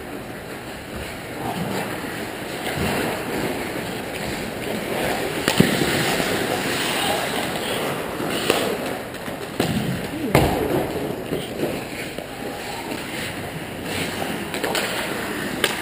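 Ice hockey play in an echoing indoor rink: skate blades scraping and hissing on the ice, with several sharp cracks of sticks and puck, the loudest about five seconds in.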